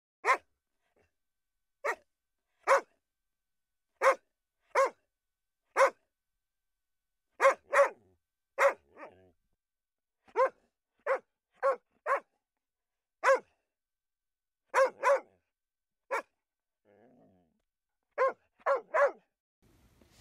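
A dog barking: about twenty short single barks, some coming in quick pairs or threes, irregularly spaced with silence between them.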